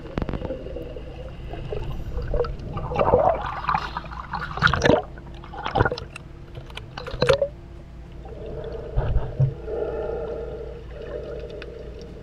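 Water gushing and gurgling around an underwater camera, with a swimmer's heavy breathing: several loud gushes in the first half, then a steadier hum. He is breathing hard to bring his heart rate down after diving.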